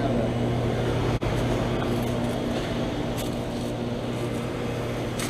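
Goodman GSH13 heat pump outdoor unit running with a steady hum, its compressor drone sitting over the fan's rush, broken by a brief dropout about a second in.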